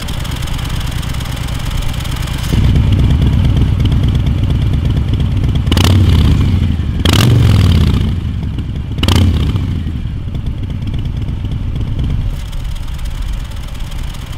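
2020 Harley-Davidson Softail Street Bob's Milwaukee-Eight V-twin with KessTech aftermarket exhaust, idling and then given three quick throttle blips in the middle before dropping back to idle.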